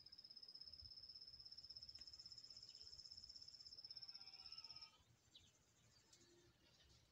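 An insect trilling: one high, steady, rapidly pulsing trill that stops about five seconds in. A few faint bird chirps follow.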